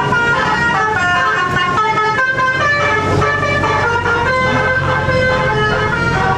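Bus telolet horn playing a tune: a multi-note musical air horn stepping quickly from note to note, with a low steady hum beneath.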